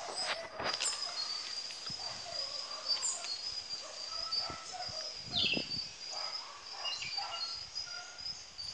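A steady high-pitched insect drone with scattered bird chirps and calls over it, and a few soft knocks.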